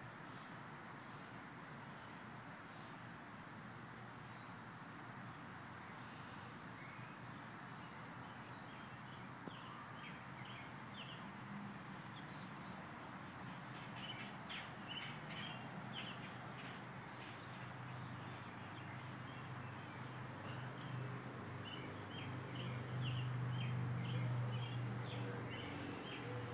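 Steady outdoor background noise with birds chirping in quick runs of short high notes, more often in the second half. A low hum swells near the end.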